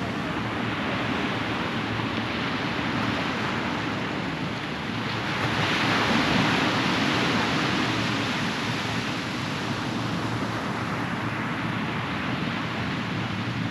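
Ocean waves washing onto a beach in a steady hiss, with one wave swelling louder about six seconds in and then easing off. A faint low steady hum runs underneath.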